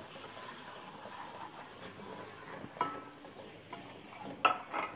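Onions, ginger-garlic paste and ground spices sizzling in hot oil in a pressure cooker pot, stirred with a wooden spoon that scrapes against the metal. A few louder knocks of the spoon on the pot come near the end.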